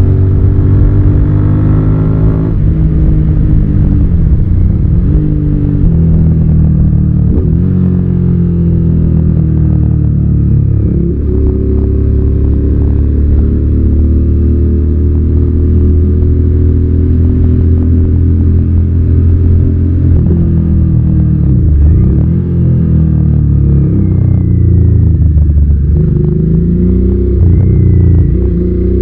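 Suzuki SV650's 90-degree V-twin engine under way, the revs climbing and then dropping sharply several times as the rider shifts through the gears.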